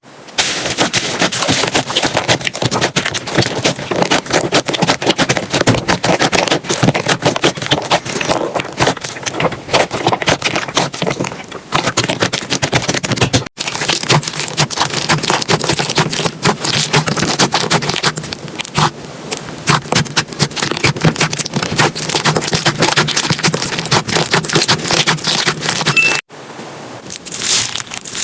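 Slime being squeezed and pressed by hand, giving a dense run of crackling, popping clicks. The sound breaks off abruptly about halfway through and again near the end, then picks up with a slightly different crackle each time.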